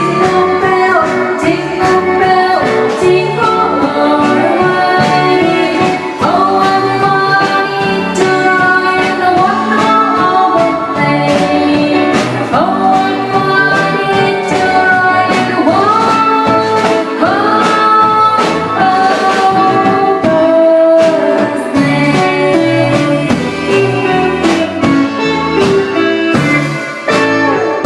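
Live band music with a singer's voice gliding over the accompaniment and drums keeping a steady beat; the music drops away near the end.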